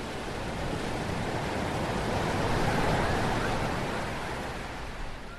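Ocean surf: a wave washing in, swelling to a peak about halfway through and easing off toward the end.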